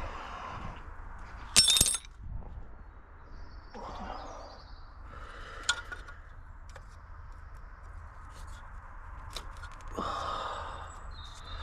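Hand-tool work on a car: sharp metallic clinks and knocks, the loudest about one and a half seconds in, with stretches of scraping.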